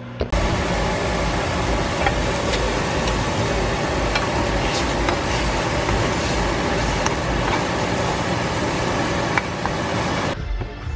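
Diced chicken and eggs sizzling steadily in a frying pan, with scattered small crackles; the sizzle cuts off shortly before the end.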